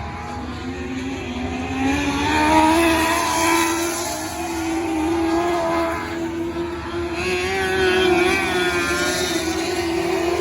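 Lightning micro sprint cars racing, several engines running hard at once and wavering in pitch as the pack goes round. The sound swells about two and a half seconds in and again about eight seconds in as the cars pass.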